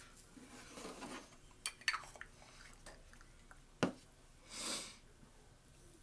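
Handling noises: a few sharp clicks and knocks, then a short rustle lasting about half a second, as objects are picked up and set down.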